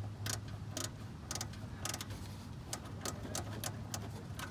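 Ratchet wrench clicking in short irregular strokes while loosening a truck's oil drain plug, over a steady low hum.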